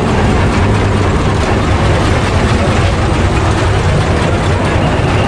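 Narrow-gauge toy train locomotive idling while standing: a steady low engine hum under an even hiss.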